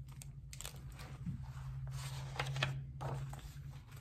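Soft crinkling and rustling of a hardcover picture book in a plastic library jacket as it is opened and its cover and pages turned, in several short bursts over a steady low hum.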